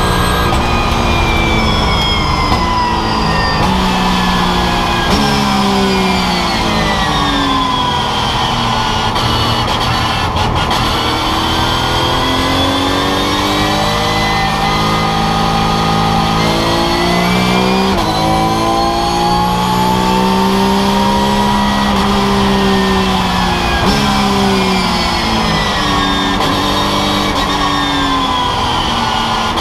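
Porsche 911 GT3 Cup race car's naturally aspirated flat-six, heard from inside the cockpit at racing speed. Its pitch climbs in long rises under acceleration and falls away under braking into corners, with the note stepping as gears change.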